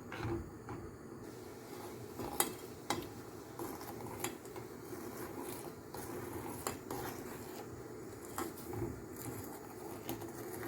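A spoon stirring boiling ginger milk in a pot, with irregular clinks of the spoon against the pot about every one to two seconds. The stirring keeps the milk from forming lumps.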